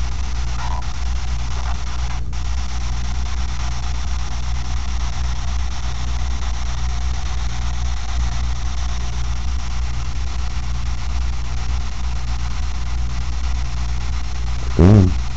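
Steady low hum with an even hiss. Near the end comes one short, loud pitched sound that drops in pitch.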